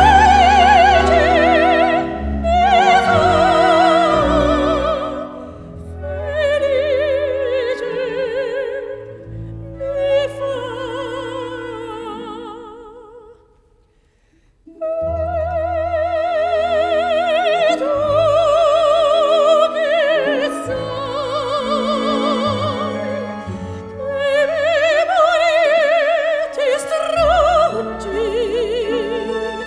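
Background music: a high operatic voice singing long notes with wide vibrato over orchestral accompaniment. About fourteen seconds in, the music fades almost to silence, then the voice comes back in at full strength.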